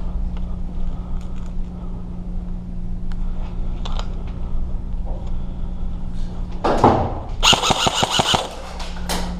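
Airsoft gun firing a rapid burst, about ten shots a second, in the last third, over a steady low hum.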